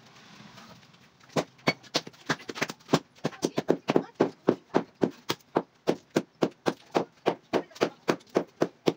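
Steady hammering on masonry: a long run of sharp, evenly spaced blows, about three a second, starting about a second and a half in.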